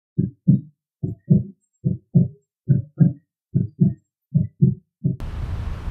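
Heartbeat sound effect: six low double thumps, lub-dub, a little under one pair a second, and a last single thump about five seconds in. Just after it, the sound cuts abruptly to steady outdoor background noise with a low rumble.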